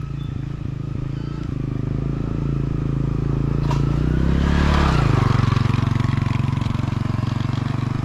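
Motorcycle engine running steadily, growing louder to a peak about five seconds in, where its pitch drops. There is a single sharp click shortly before the peak.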